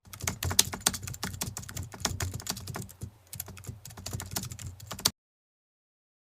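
Typing on a computer keyboard: a fast, irregular run of key clicks with a short lull about three seconds in, stopping abruptly after about five seconds.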